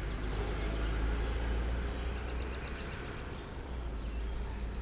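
Steady low outdoor rumble, with a few faint high chirps about four seconds in.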